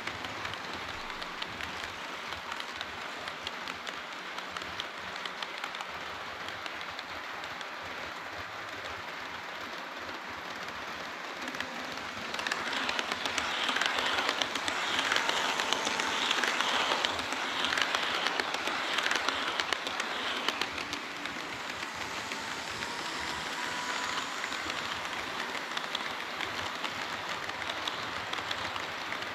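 HO-scale model train running on the layout track: a steady rolling and rattling of small metal wheels on rail. It grows louder about twelve seconds in and eases off again some eight seconds later, as the train passes close.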